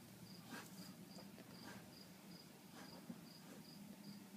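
Faint cricket chirping, a short high chirp about two and a half times a second, over a low steady hum.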